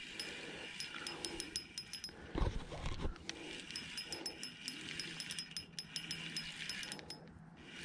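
Spinning reel being cranked to reel in a hooked fish, its gears giving a run of fast, irregular ticks, with a dull bump about two and a half seconds in.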